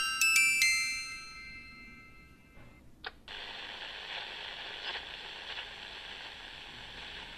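A few chime-like notes struck at the start ring and fade away over about two seconds. About three seconds in comes a click, then a portable radio's steady static hiss as it is switched on, before any station is heard.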